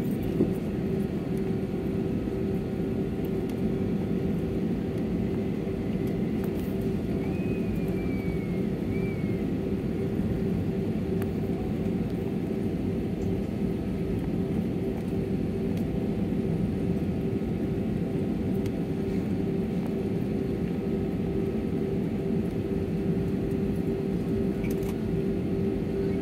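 Airbus A320-family airliner's jet engines at low taxi thrust, heard inside the cabin: a steady rumble with a constant hum, not rising in level.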